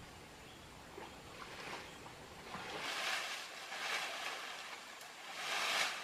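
Shallow stream water splashing and sloshing as hands work in it, in four swells, the last and loudest near the end.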